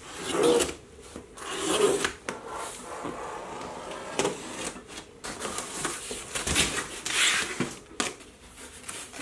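Cardboard box being opened: a hobby knife slitting packing tape, and the cardboard flaps scraping and rustling as they are pulled open, with a few sharp clicks.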